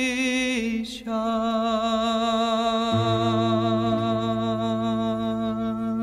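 Sung religious song: a solo voice holds long notes with vibrato, moving to a new note about a second in, and a low steady drone joins about three seconds in.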